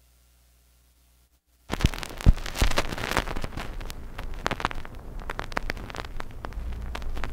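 Near silence, then about two seconds in the turntable stylus lands in the lead-in groove of a vinyl record, and surface noise follows: steady crackle with scattered clicks and pops, one loud pop soon after the landing.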